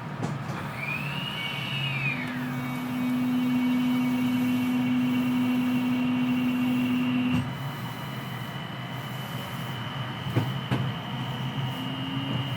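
Kita-Osaka Kyuko 9000-series train's Toshiba IGBT VVVF inverter and permanent-magnet synchronous traction motors pulling away and accelerating, heard through the car floor over the motor hatch. A high inverter tone rises and falls in the first couple of seconds, then a steady low hum and a high whine hold until the sound changes abruptly about seven seconds in. Near the end a low tone starts climbing as the train gathers speed.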